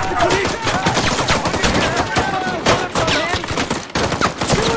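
Heavy small-arms fire: many guns firing at once in rapid, overlapping automatic bursts, the shots dense and unbroken.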